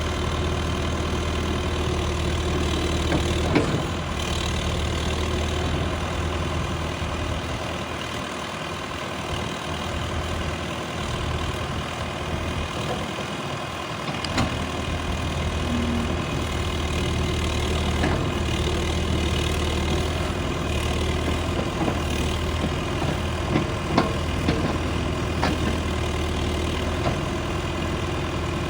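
John Deere 310SG backhoe loader's four-cylinder diesel engine running steadily at a low, idle-like speed, with a few sharp metallic clanks or knocks now and then.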